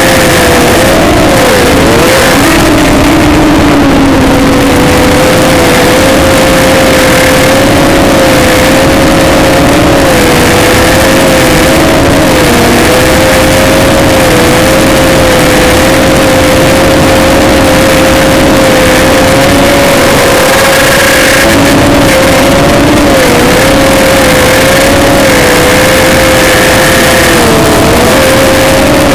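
ZMR250 mini quadcopter's motors and propellers whining steadily, recorded by the onboard camera, so the sound is loud and distorted. The pitch wavers up and down with the throttle.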